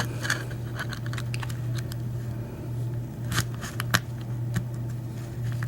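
Small scattered metallic clicks from a Schlage KIK lock cylinder and its key being handled and turned, locking the picked plug back. The sharpest clicks come about three and a half and four seconds in, over a steady low hum.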